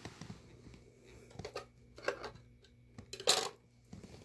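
Plastic pieces of a dog treat puzzle toy knocking and clattering as they are pushed and shifted, a few separate clacks with the loudest about three seconds in.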